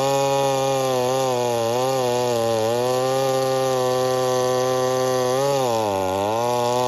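Stihl 009L two-stroke chainsaw running at high speed, its pitch dipping briefly a couple of times. From about five and a half seconds in the engine note surges up and down about once a second, the saw starving as its fuel tank runs dry.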